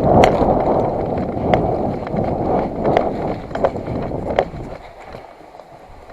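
A person running, with footsteps, clothing and gear rustling, and wind rumbling on the microphone, broken by a few sharp clicks. It settles down after about four and a half seconds.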